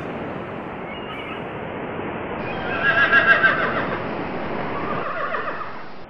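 A horse whinnying over steady background noise: one loud, trembling whinny about three seconds in, and a second call near the end.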